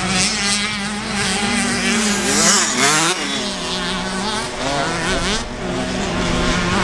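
Several motocross bikes riding a dirt track, their engines revving up and down as they accelerate and back off, the overlapping notes rising and falling with a sharp rev up and down about two to three seconds in, over a steadier low engine note.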